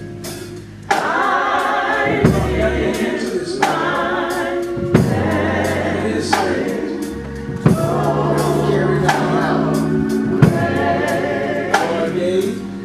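Gospel music: a choir singing slow, held chords over steady bass notes, with an occasional drum hit.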